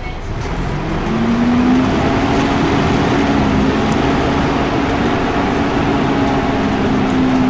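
Volvo B10BLE bus running with its engine cooling fan on: a loud steady drone, with a strong hum that comes in and rises slightly about a second in, then holds steady.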